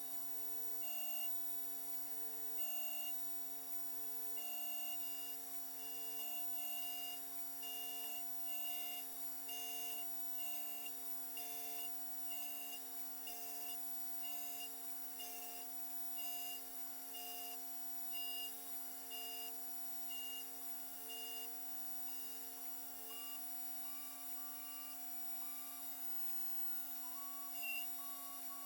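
Custom-built 5-axis CNC machine running a program on a two-stroke cylinder sleeve: short pitched whirs from the axis motors repeat about once a second over a steady hum. The repeated whirs stop about two-thirds of the way through, and a higher steady tone comes in near the end.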